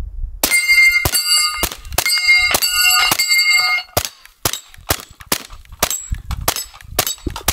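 Suppressed Kriss Vector in .45 ACP (Rugged Obsidian 45 suppressor) fired semi-automatically: a steady string of subsonic shots at about two a second, with steel targets ringing out on hits. The ringing is heaviest in the first half.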